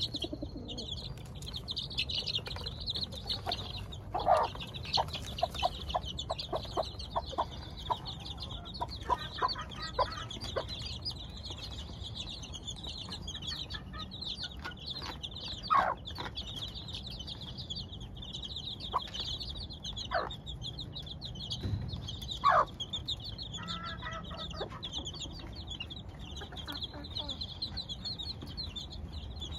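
A brood of two-week-old chicks peeping continuously in rapid high chirps, with a mother hen clucking among them: a run of clucks about four to eight seconds in and single louder ones near the middle and about three-quarters through.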